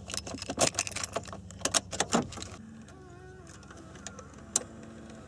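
Car keys jangling and clicking as the key is turned in the ignition lock, a quick run of clicks and rattles over the first two seconds. A single sharp click follows near the end.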